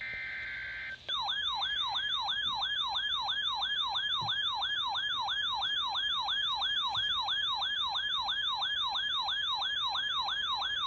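Emergency weather alert tones: a brief burst of flat digital data tones (SAME header). About a second in, a loud warbling, siren-like alert tone starts, each sweep falling in pitch, about three sweeps a second, and runs steadily for about ten seconds, announcing a winter storm warning.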